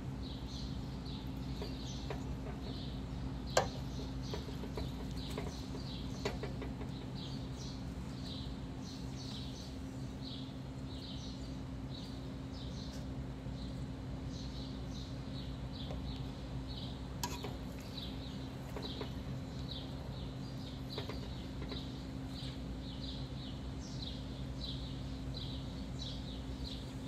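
Plastic rice paddle stirring cooked rice in a metal pot, knocking sharply against the pot a few times, the loudest knock about three and a half seconds in. Under it runs a steady low hum and a quick string of short high chirps, about two a second.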